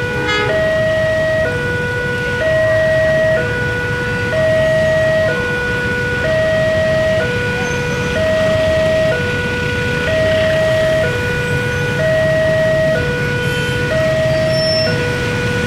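Railway level-crossing warning alarm sounding, a higher and a lower tone alternating about once a second, signalling an approaching train. A steady low rumble runs beneath, and a brief rattle of clicks comes about half a second in.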